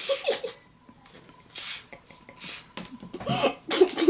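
A girl giggling in short, breathy bursts, with a few brief voiced laughs.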